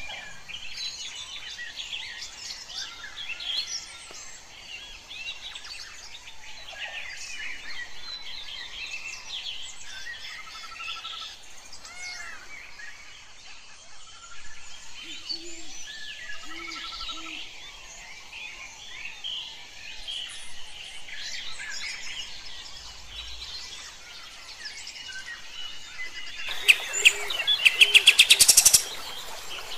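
Kapas tembak, a bulbul, singing steadily in busy chirps and short whistled phrases, with a loud run of rapid sharp notes near the end.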